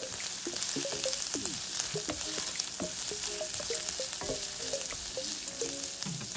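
Chopped garlic and ginger sizzling in sesame oil in a wok, with a steady hiss, while a wooden spatula stirs them, scraping and tapping against the pan with short squeaks.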